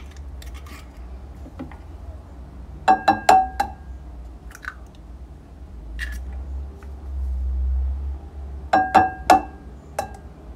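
Eggs being cracked by tapping them against the rim of a glass mixing bowl: a quick run of three or four sharp knocks with a brief glassy ring, twice, about three seconds in and again near nine seconds.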